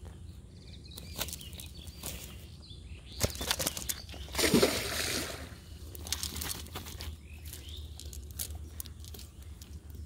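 Nylon cast-net mesh rustling and a landed fish flapping against the net and grass, with scattered clicks. The loudest flurry of flapping comes about four and a half seconds in.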